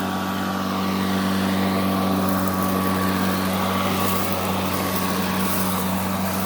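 Greenworks electric lawn mower running steadily while cutting grass: an even motor hum and whine that sounds like a vacuum cleaner.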